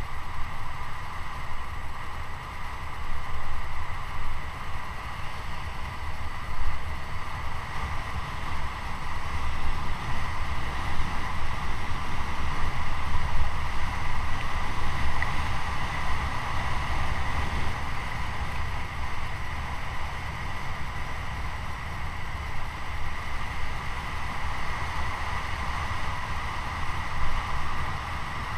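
Wind buffeting the microphone and tyres rolling on asphalt as a mountain bike coasts fast downhill: a steady rush with a heavy low rumble that swells and eases.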